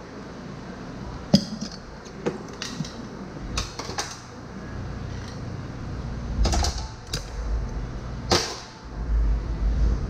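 Scattered sharp clicks and knocks of steel flat screwdrivers against a small zero-turn mower wheel's steel rim as the tire bead is pried on by hand, with a low rubbing rumble near the end as the tire is gripped and worked with bare hands.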